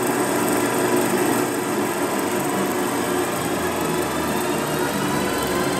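Vintage film projector running: a steady mechanical whirr.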